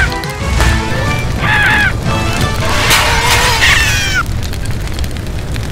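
Cartoon fire sound effect: a low rumbling roar of flames, with three short high squeals that fall in pitch, over music.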